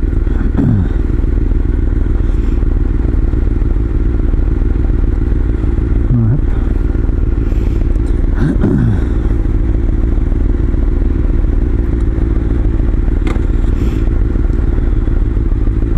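Honda CBR sportbike's inline-four engine running steadily, with a few brief falling pitch sweeps.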